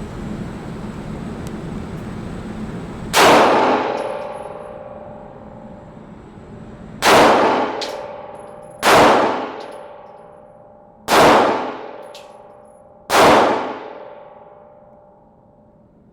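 Five gunshots fired at uneven intervals, one about three seconds in and the rest over the next ten seconds. Each sharp crack is followed by a ringing tail that fades away over a couple of seconds.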